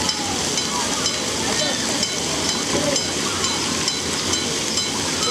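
Water spraying and splashing from the fountains and jets of a children's water play structure, a steady hiss, with children's voices calling out over it.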